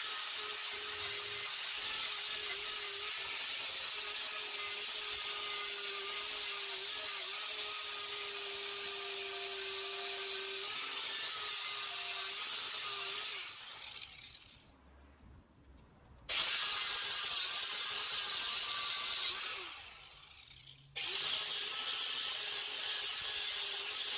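Electric angle grinder cleaning paint and rust off a steel bar before welding: a steady motor whine with a grinding hiss. It winds down about thirteen seconds in and restarts about three seconds later, then winds down briefly again near twenty seconds before starting up once more.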